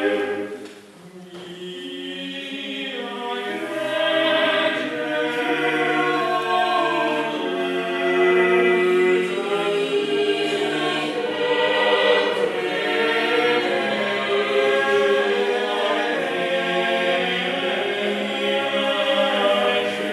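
A small mixed-voice choir singing a cappella in sustained, overlapping chords. The voices fall away briefly about a second in, then build back up and hold long notes.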